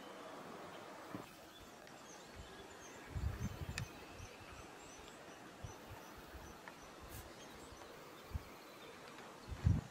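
Quiet outdoor ambience with a run of faint high chirps repeating about three times a second. Low rumbling thuds come about three seconds in and again near the end.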